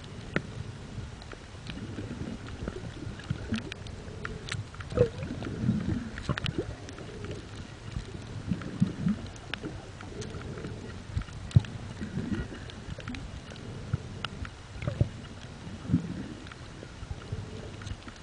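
Underwater sound through a camera: a muffled low wash of moving water, with soft surges every few seconds and many scattered sharp clicks and crackles.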